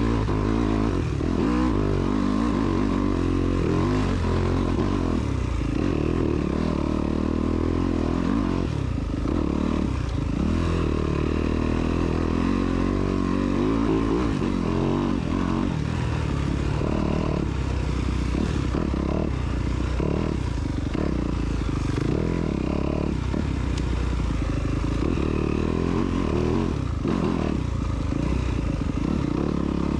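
Off-road motorcycle engine running along a dirt trail, its pitch rising and falling again and again as the throttle is opened and closed.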